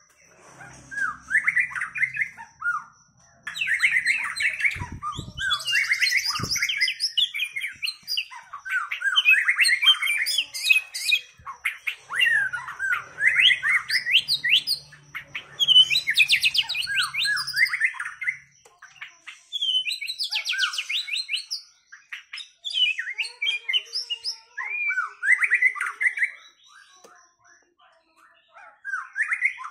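White-rumped shama (murai batu) singing in bouts of rapid, varied whistles and chattering notes that sweep up and down, with short pauses between phrases. Two dull knocks come a few seconds in.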